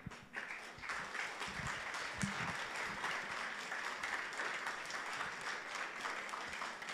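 Congregation applauding: many hands clapping together in a steady patter that starts just after a brief pause.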